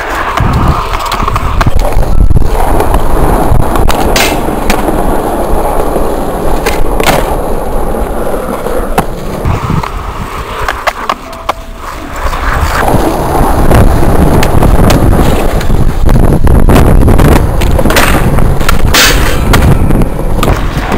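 Skateboard wheels rolling over a rough concrete court, a loud steady rumble, broken by several sharp clacks of the board striking the ground.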